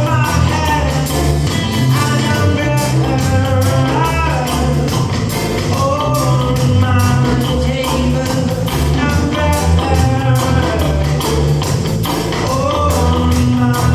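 Band music with a heavy bass line and a gliding melodic lead line above it.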